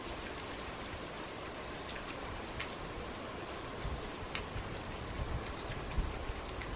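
Melting snow dripping off a roof: separate drips every second or so over a soft steady hiss.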